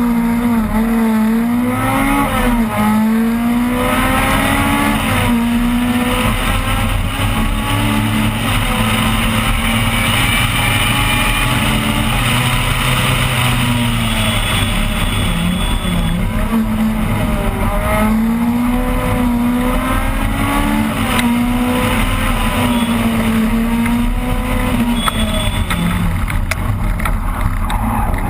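Opel Kadett rally car engine driven hard, heard from inside the car, its pitch climbing and dropping repeatedly as it accelerates and shifts gears and lifts off for corners.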